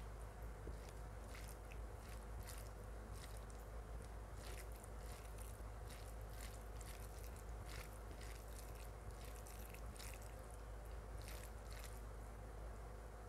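Close-up eating sounds of mutton curry and rice: soft wet chewing with irregular sharp mouth clicks and smacks, roughly one or two a second.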